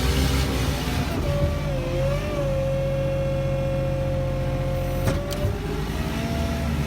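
Tractor engine running steadily under load, with a higher whine over the drone that wavers slightly in pitch, and a brief click about five seconds in.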